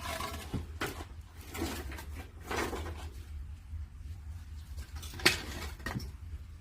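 Wood-fired kiln during firing: scattered knocks and crackles over a steady low rumble, with one sharp crack about five seconds in.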